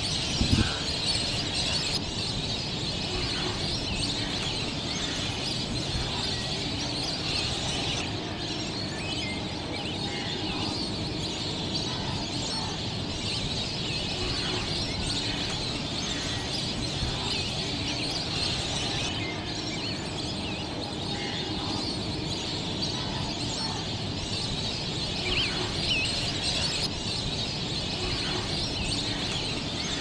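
Outdoor ambience of many birds calling and chirping over a steady background hiss and low rumble.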